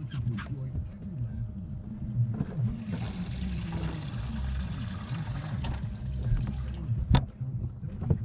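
Water trickling and splashing for a few seconds in the middle, over a steady insect drone, with a sharp knock near the end.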